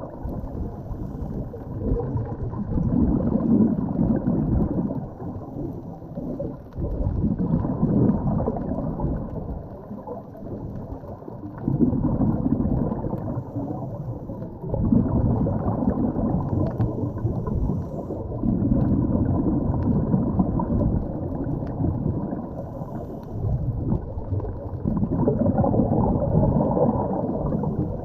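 Underwater sound muffled by a GoPro's waterproof housing: a scuba diver's exhaled bubbles from the regulator, rising in a gurgling rush about every four seconds, with a low hiss of breathing and water between.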